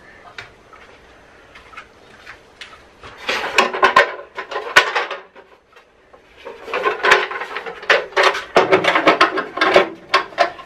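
Hard plastic extraction hood of a jointer-planer being handled and set onto the machine's aluminium table: a cluster of clattering knocks and scrapes about three seconds in, and a longer run of them from about six and a half seconds on.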